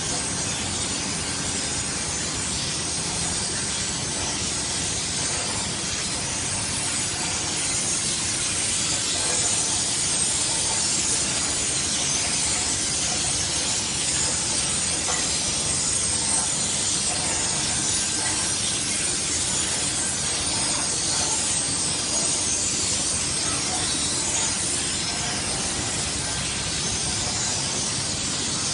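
Steady machine noise of an automatic dough sheeting and make-up line running: motors, rollers and conveyor belts, with a strong even hiss and no pauses.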